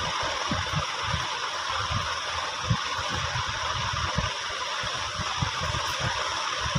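Steady hiss of background noise with uneven low rumbles, like air buffeting the microphone.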